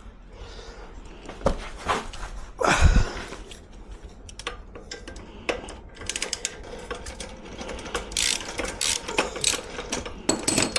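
Hand socket ratchet clicking in quick runs as a fastener on the motorcycle's exhaust is turned, with a single louder knock about three seconds in.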